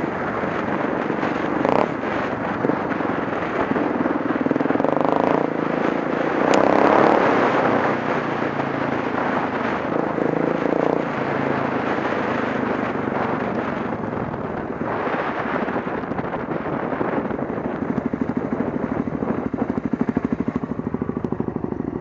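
Off-road motorcycle under way on a rough dirt and gravel track: the engine runs steadily under wind noise, with scattered knocks and clatter from the bumpy surface.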